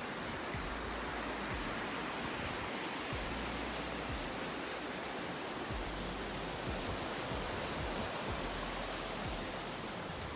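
Steady rushing of falling water from a waterfall, with an uneven low rumble underneath.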